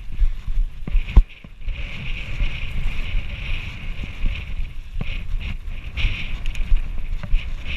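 Fat bike rolling downhill over soft sand: a constant rumble and rattle from the tyres and bike, with a hard knock about a second in. After a short lull, a steady hiss sets in.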